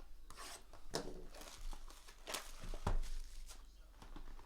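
Trading-card packaging being handled and torn open: a few short tearing and crinkling strokes with light knocks.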